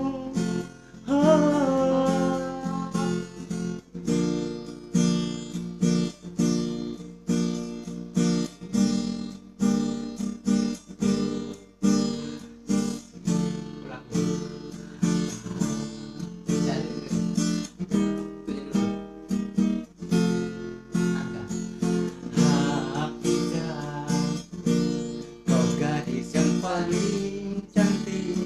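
Acoustic guitar strumming chords in a steady rhythm: an instrumental interlude with no lead vocal.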